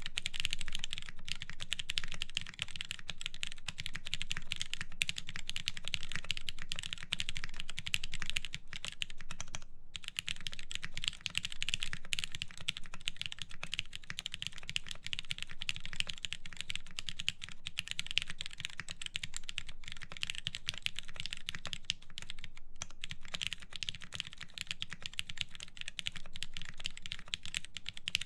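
Continuous fast typing on a mechanical keyboard with lubed Cherry MX Black linear switches, aluminum plate and DCS keycaps, a dense stream of keystrokes with a brief pause about ten seconds in.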